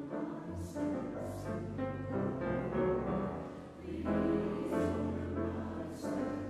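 Background music in a classical style, with piano prominent.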